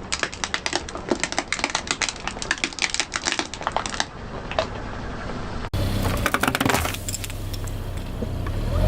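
Dense, rapid crackling and crunching of brittle objects being crushed under a car tyre, thinning out after about four seconds. After a sudden cut, a low rumble with further scattered crunches.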